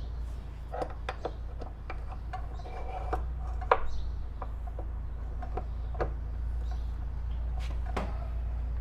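Scattered light clicks and knocks of metal parts and tools being handled while the front wheel and axle of a motorcycle are fitted, the sharpest knock a little under four seconds in, over a steady low hum.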